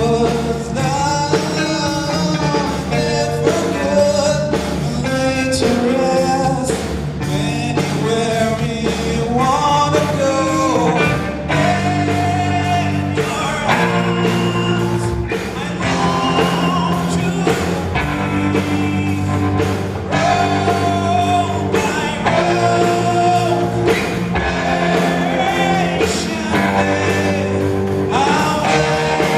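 A rock band playing live: a singer's voice over electric guitar, bass and drums.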